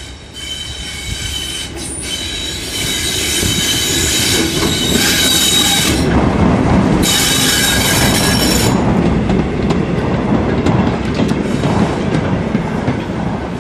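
Class 37 diesel-electric locomotive, with its English Electric V12 engine, passing close by while hauling wagons and a brake van, with high-pitched squealing over the engine noise. The sound builds as the locomotive approaches and is loudest in the middle. The squeal fades after the loco passes, and the wagon wheels click over the rail joints as the train rolls by.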